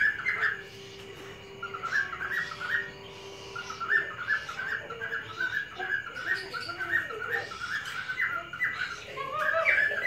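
Cockatiels chattering: a long run of short, quick chirps, several a second.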